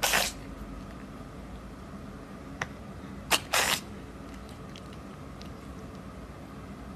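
A flat-faced cat sneezing: one short sharp sneeze at the start, then two more in quick succession about three and a half seconds in, with a small click between them.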